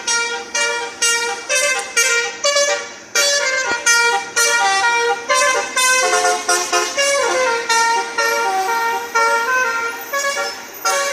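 Basuri horn, a multi-trumpet electric vehicle horn, playing a fast tune of short, loud pitched notes one after another.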